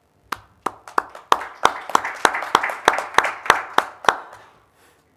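Applause from a seated audience, with one pair of hands clapping close to the microphone, sharp and even, about three claps a second. The applause swells over the first second or so and dies away near the end.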